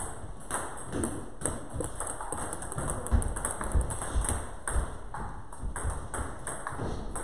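Table tennis ball clicking off rackets and the table in a rally: quick, sharp ticks at an uneven pace.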